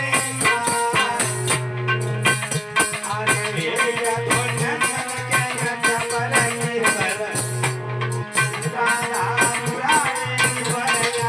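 Alha folk-ballad music: a steady rhythmic instrumental passage with a rattling, shaker-like percussion keeping time over sustained melodic notes and a drum.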